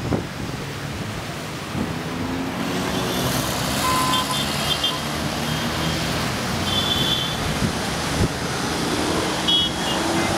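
City road traffic passing, a steady wash of engines and tyres, with several short car horn beeps from about four seconds in.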